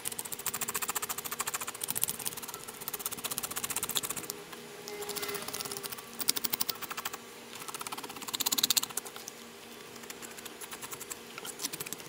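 A metal spoon scraping the scales off a whole mangrove snapper on a plastic cutting board: rapid rasping strokes in bursts of a second or two, with short pauses between.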